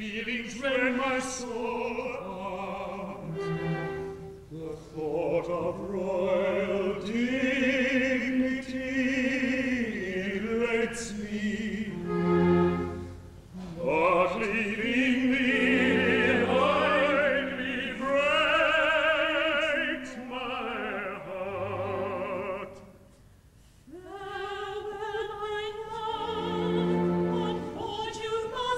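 Operetta singing with orchestral accompaniment, the voices sung with wide vibrato in phrases that break and re-enter; the music drops away briefly about 23 seconds in before the voices come back.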